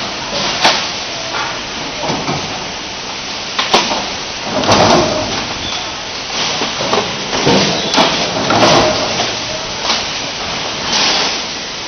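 Steady factory machinery noise with sharp knocks several times, about three to four seconds apart.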